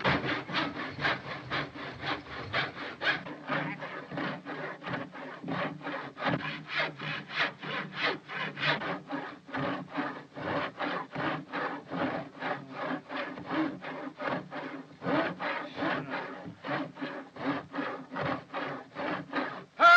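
A hand drill boring holes through the wooden side of a trunk: a steady, rhythmic rasp of the bit cutting into wood, about three strokes a second.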